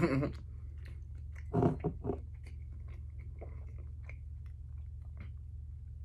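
Close-up mouth sounds while eating: chewing, a short louder voiced sound about a second and a half in, then faint clicks and swallows as water is drunk from a clear bottle.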